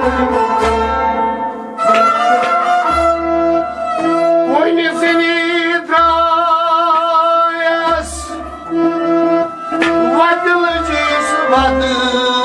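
Kashmiri Sufi devotional music: an instrumental passage of sustained, wavering melodic lines over recurring low drum beats.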